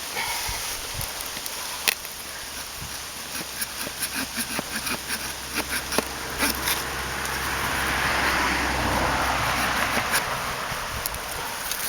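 Victorinox pocket-knife saw blade rasping back and forth through a wooden log in quick, even strokes near the end of the cut. A low steady hum rises and fades in the background during the second half.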